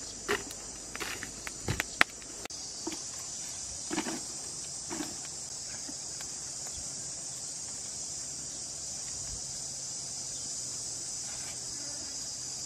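A steady high-pitched insect chorus runs throughout. Over it, in the first five seconds, come scattered knocks, rustles and footsteps on grass as a bamboo spit is handled and set onto wooden stakes. The sharpest knock is about two seconds in.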